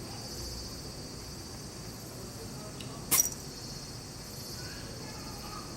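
A cat sneezes once: a single short, sharp burst about three seconds in.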